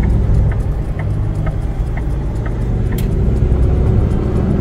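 Semi truck's diesel engine running at low speed during a slow parking manoeuvre, heard from inside the cab. A light tick repeats about twice a second, and a sharp click comes about three seconds in.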